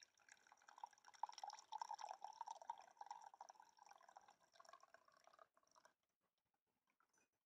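Tea pouring in a thin stream from the spout of a French press into a ceramic mug, a steady trickling splash that stops about six seconds in.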